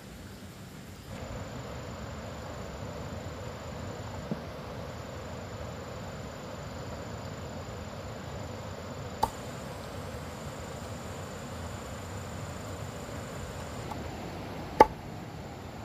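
Insects giving one steady high trill over a noisy background, with three sharp knocks: one about four seconds in, one near the middle, and a louder one near the end.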